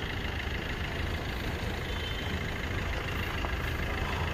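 Suzuki S-Cross engine idling steadily, a low, even rumble.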